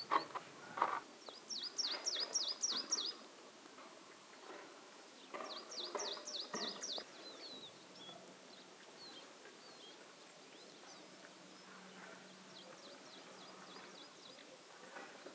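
A small songbird singing: two phrases of about six quick, high, down-slurred notes, a few seconds apart, followed by fainter scattered calls. Irregular short crunches or knocks come in the first few seconds and again with the second phrase.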